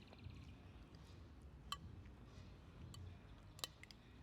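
Near silence over a low steady hum, broken by three faint sharp clicks from eating a meal.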